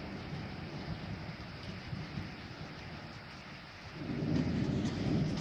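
Steady rain falling on a wet street, with a low rumble that swells about four seconds in.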